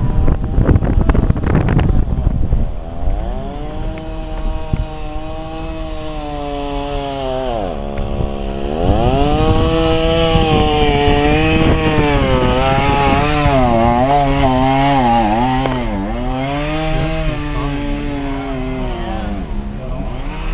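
Chainsaw engine running, its pitch holding steady, dropping once and then dipping and rising repeatedly. A loud rushing noise fills the first two seconds.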